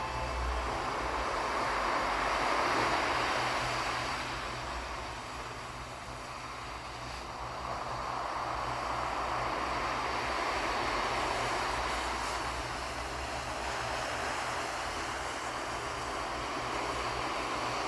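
Sea waves breaking and washing ashore: a continuous rush of surf that swells near the start, eases off a few seconds later, and builds again.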